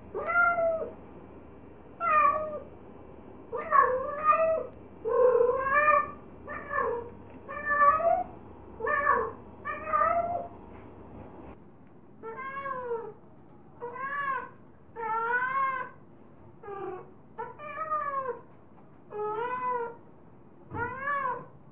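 Female cat in heat calling over and over with drawn-out meows, roughly one a second. Each call rises and then falls in pitch. The low background hiss drops away about halfway through.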